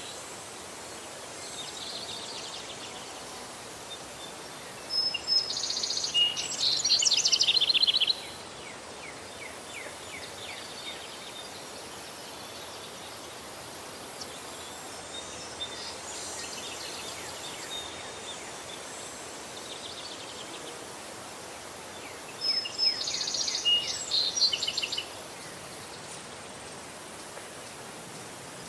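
Outdoor nature ambience: a steady background hiss with a high-pitched insect drone that stops and starts. A bird sings a phrase of rapid repeated notes, about five seconds in and again about twenty-two seconds in; these songs are the loudest sounds.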